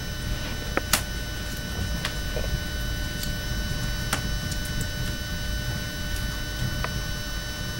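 Muffled low rumble of gusting storm wind, with a constant electrical hum over it and a few faint ticks.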